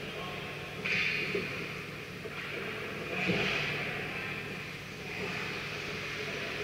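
Ice skate blades scraping the ice in short hissy swells, three of them about two seconds apart, over a steady low hum in a large ice arena.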